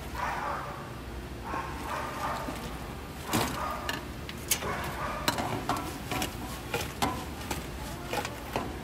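Fried pork sizzling in a wok. From about three seconds in, a metal ladle clinks and knocks repeatedly against the wok as the pork is stirred and tossed in it.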